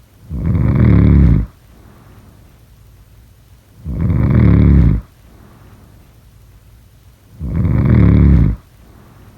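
Loud snoring: three snores about three and a half seconds apart, each lasting a little over a second, with faint breathing between them.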